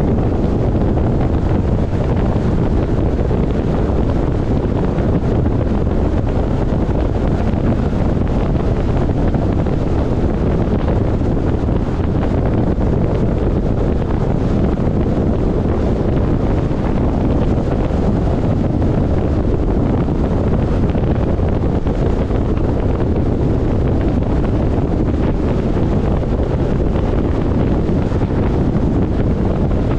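Steady road and wind noise of a car travelling at highway speed, a constant low rumble with wind buffeting the microphone.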